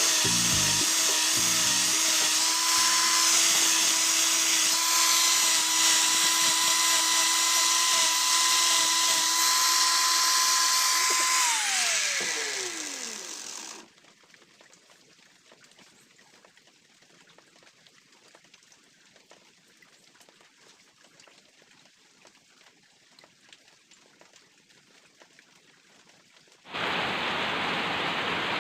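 Electric power tool motor running at a steady pitch, then switched off about 11 seconds in and spinning down, its pitch falling until it stops. After a long near-silent stretch, a steady hiss starts near the end.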